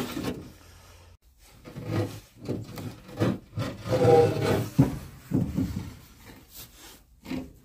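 Steel hydraulic accumulator bottle being handled and lifted out of its steel mounting box, with irregular scraping and knocking of metal on metal.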